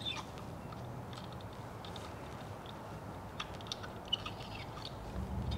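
Faint, scattered small clicks and scrapes of a Helicoil installation tool being turned by hand, winding a coil thread insert into a tapped hole in an aluminium engine front case, with one sharper tick about four seconds in. A low hum comes up near the end.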